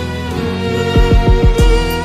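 Background music: sustained violin and strings over a low, regular beat.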